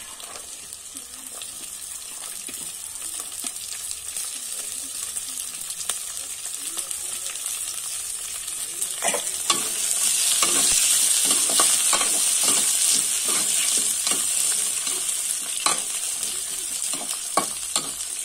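Green peas and onions sizzling in hot oil in a kadhai, stirred with a metal slotted spoon that scrapes and knocks against the pan. The sizzle grows louder about halfway through, and the spoon knocks come several times in the second half.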